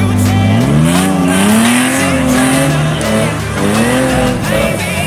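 Off-road buggy engine revving hard under load, its pitch rising and falling twice, over background music.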